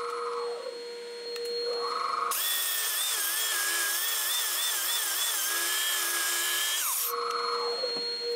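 Finger belt sander sanding out ripples in the bottom of a wooden goblet bowl. A loud whine starts about two seconds in, wavers in pitch and winds down near the end. A quieter, steady machine whine runs before and after it.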